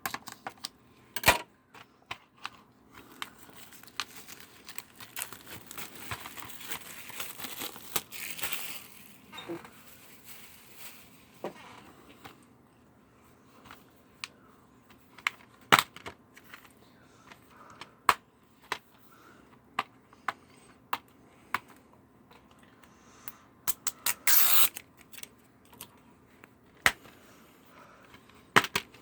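Plastic shrink wrap being torn and crinkled off a DVD case, with sharp clicks and taps of the plastic case being handled. A longer stretch of crinkling runs from about four to nine seconds in, and there is another short burst near the end.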